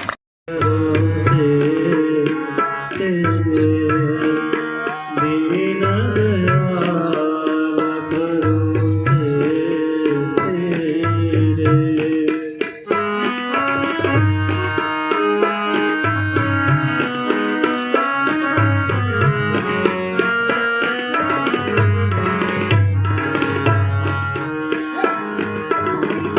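Instrumental music: a tabla beat under a held melody, with no singing.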